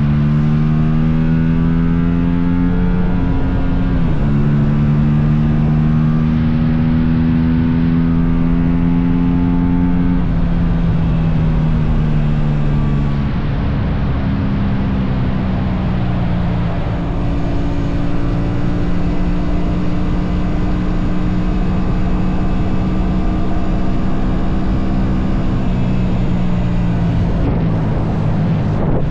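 Aprilia RS 457 motorcycle's parallel-twin engine running loud and steady, its pitch rising and falling slowly, with a sudden change about four seconds in and a fall between ten and thirteen seconds.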